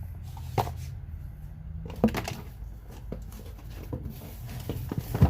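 Items being handled on a bench: a few sharp clicks and knocks, the loudest about two seconds in and near the end, over a low steady hum.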